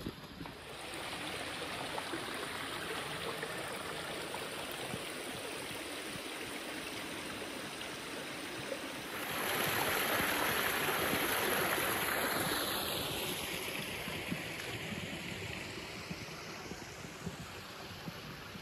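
A small stream running over rocks, a steady rush of water. It grows suddenly louder about nine seconds in, then slowly fades away.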